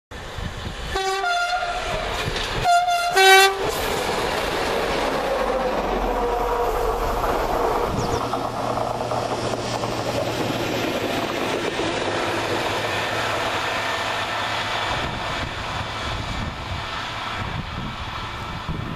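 Railway locomotive's two-tone horn sounded twice in short blasts, about a second and about three seconds in. The steady rolling rumble of the train running on the line follows and eases off slightly near the end.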